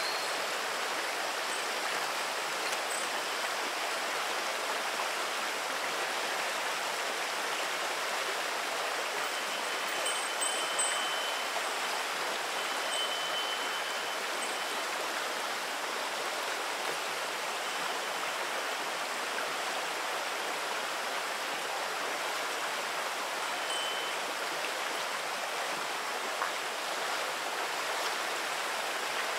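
Shallow river babbling steadily over a pebble bed, with a Japanese wind chime (fūrin) ringing a few clear high notes, about a third of the way in and again later.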